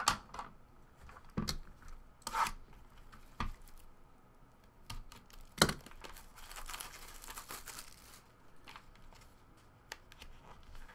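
Clear plastic shrink-wrap being torn and crinkled off a trading-card pack, a rustling stretch lasting about two seconds from six seconds in. Scattered sharp taps and knocks of the box and cards being handled on a table run around it, the loudest just before the tearing.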